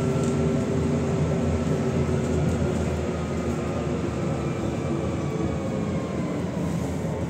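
Cabin noise of a MAZ-105 articulated city bus under way: a steady engine and road rumble with a faint whine. The whine sinks slightly in pitch and the noise eases as the bus slows.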